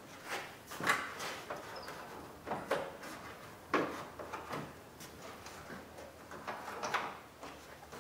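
Hard plastic knocking, clicking and scraping in irregular, separate knocks as a new grille assembly is lifted and slid into place under the plastic trim panel above it.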